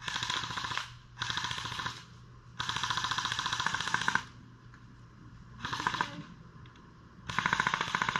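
Colt M4A1 CQBR electric airsoft gun firing on full auto: five short bursts of rapid clicks from the motor-driven gearbox cycling, the third burst the longest at about a second and a half.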